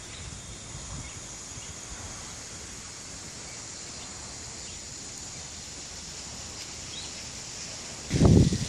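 Quiet outdoor ambience: a steady faint hiss with a few faint high chirps. Near the end, loud, irregular low buffeting sets in suddenly.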